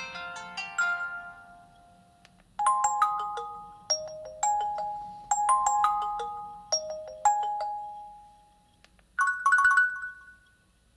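Nokia 8000 4G ringtones playing through the phone's speaker. The end of a fast tinkling melody fades out, then a short melody of bell-like notes plays from about two and a half seconds in. A brief trilling alert tone follows near the end.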